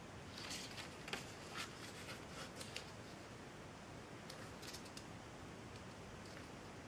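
A sheet of printer paper being folded and creased by hand: faint crisp crackles and rustles, clustered in the first three seconds and again briefly a little past the middle, over a steady low hiss.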